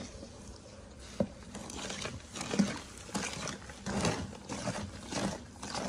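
Wooden spoon beating eggs into a thick butter-and-sugar batter in a plastic bowl: soft, wet strokes at about two a second, with one sharp knock of the spoon about a second in.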